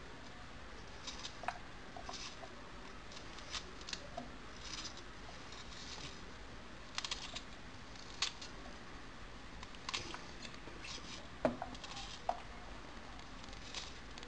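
Kitchen knife cutting an onion held in the hand: faint, crisp snips as the blade goes through the layers, irregular and about one a second.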